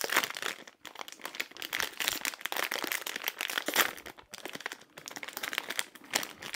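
Plastic wrapper of a dental dog treat crinkling and crackling in irregular rustles as it is worked open by hand.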